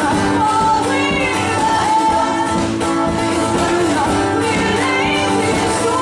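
Two women singing together over two strummed acoustic guitars, a live folk-pop performance with held, sliding vocal notes.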